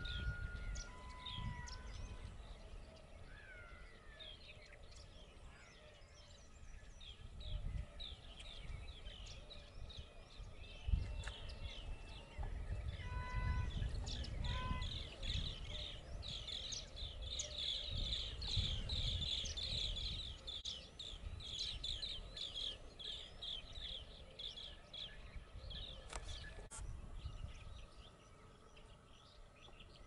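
A flock of birds chirping and chattering, busiest in a dense stretch from about halfway in. There are a few short clear whistles in the first seconds and again around a third of the way in, over a low rumble.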